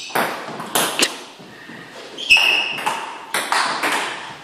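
Table-tennis rally: the ping-pong ball clicking sharply off paddles and the table, about eight hits at an uneven pace. There is a brief high squeak about two seconds in.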